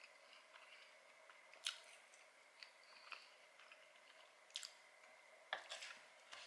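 Faint close-miked mouth-closed chewing: soft wet clicks and squishes every second or so. A few louder clicks come near the end as a metal fork digs into spaghetti in a paperboard box.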